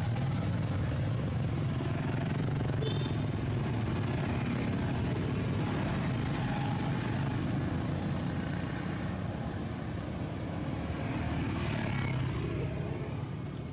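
Steady motor-vehicle engine noise, fading near the end.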